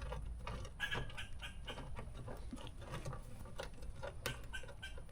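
A squirrel chattering: a run of quick, irregular sharp clicks and chucks, with a few louder ones about a second in and near the end. It is the squirrel's scolding alarm call at people close to its home.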